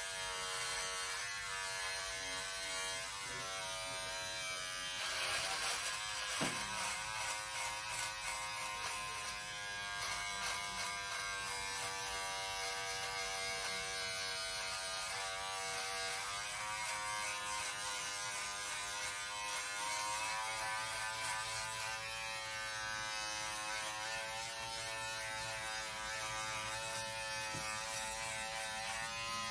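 Braun 6-in-1 electric shaver running with a steady buzz whose pitch wavers and dips now and then. About five seconds in it turns louder and rougher for a couple of seconds, with a sharp click partway through.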